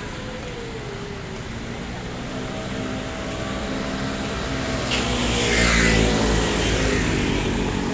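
A motor vehicle on the street approaching and passing close by. Its engine hum and tyre hiss build up to a peak about six seconds in, then ease off.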